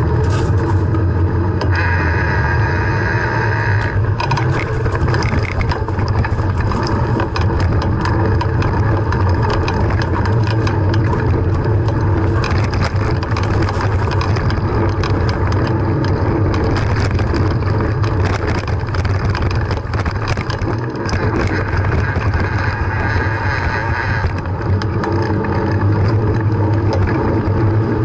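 A bicycle ride heard from a camera mounted on the bike: a steady low wind rumble on the microphone with tyre noise, and a run of rattles and knocks over the rough stretch in the middle.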